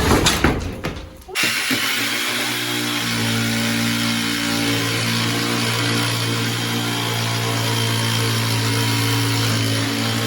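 A short clattering noise, then about a second in a motor comes on and runs steadily at one even pitch.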